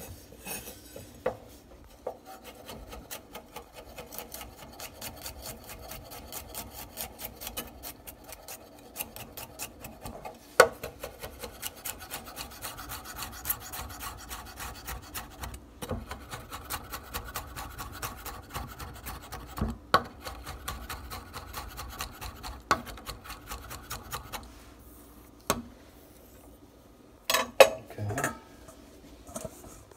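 Chef's knife chopping rosemary and garlic on a wooden butcher-block cutting board: a fast, steady run of blade strikes on the wood. It stops about 24 seconds in, followed by a few louder knocks a few seconds later.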